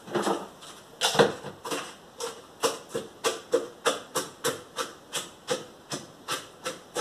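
Spatula scraping chopped cabbage around the inside of a stainless steel Thermomix mixing bowl in quick repeated strokes, about three a second, each with a slight metallic ring. The first strokes are slower and uneven, with one louder knock about a second in.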